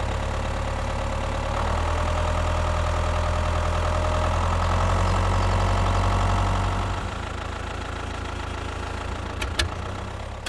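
An engine idling steadily. It grows louder from about a second and a half in, then eases back about seven seconds in, with a couple of sharp clicks near the end.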